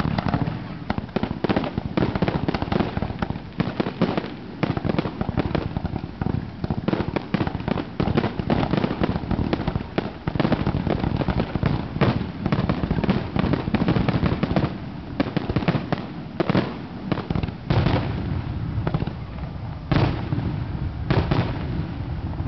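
Consumer fireworks finale cake firing a rapid, unbroken string of shots, each comet launching and bursting overhead. A few louder reports stand out near the middle and toward the end.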